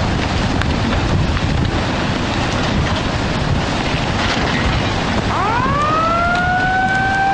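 Loud, steady rushing noise throughout. About five seconds in, a siren starts, rising quickly in pitch and then holding a steady wail.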